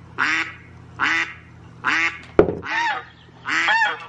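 Recorded geese honking, a call about every second, played back through a speaker. A single sharp knock sounds about halfway through.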